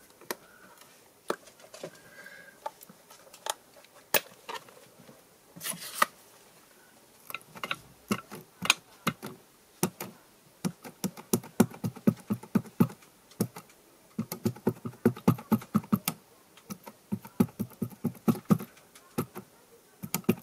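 Ink pad tapped again and again onto a rubber stamp to ink it: short sharp taps, sparse at first, then coming in quick runs of several a second through the second half.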